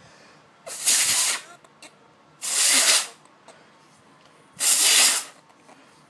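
Three hard blasts of blown air, each well under a second and about two seconds apart, sounding as a rushing hiss: air blown at the iPad's speaker to clear it.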